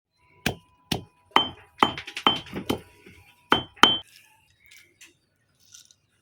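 A run of about ten hard clinking strikes, uneven in spacing, each with a brief ringing tone, ending about four seconds in, followed by a few faint taps.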